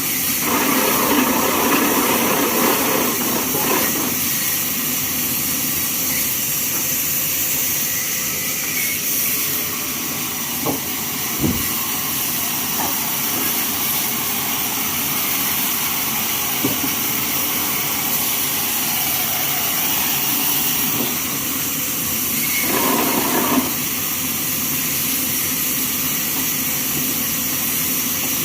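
Bandsaw mill running steadily with a constant hiss. There are two louder passages, one in the first few seconds and a shorter one a little over twenty seconds in, and a few sharp knocks around eleven seconds in.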